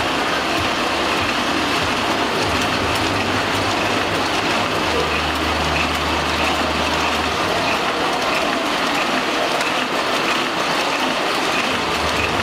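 Small offset printing press running with a steady mechanical clatter. A low hum swells in the middle, strongest from about five to seven seconds in.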